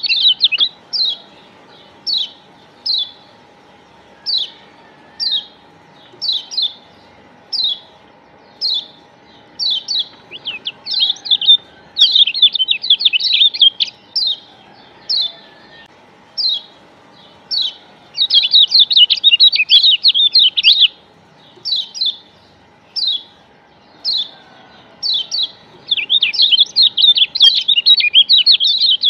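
Kecial kuning, the Lombok yellow white-eye, calling in short high chirps about once a second. These break three times into longer runs of fast chattering.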